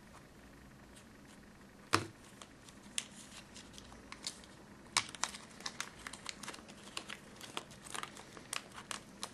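Plastic packaging crinkling and crackling as it is handled and pulled open, a sharp crackle about two seconds in, then a quick run of crackles through the second half.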